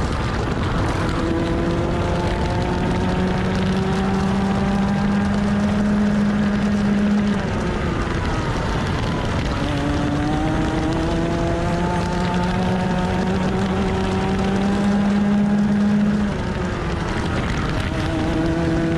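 125cc two-stroke TaG kart engine at racing speed, its revs climbing steadily along the straights. The pitch drops off for a corner about 8 seconds in and again near the end, then climbs again.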